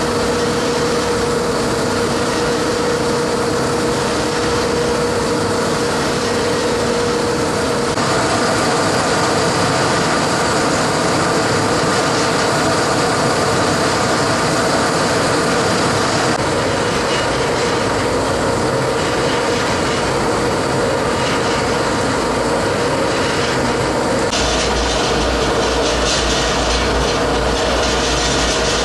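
56-cubic-foot stainless steel double ribbon mixer running, its motor and drive turning the ribbon agitator with a steady mechanical hum. A steady tone sits in the sound for the first eight seconds or so, and its character shifts a few times after that.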